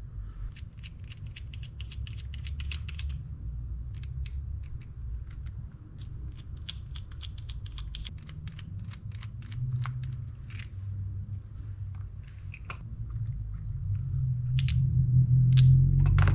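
Small, sharp clicks and ticks of metal reel parts and hand tools as a spinning reel is taken apart. A quick run of clicks comes in the first few seconds, then scattered single clicks, over a steady low hum that grows louder near the end.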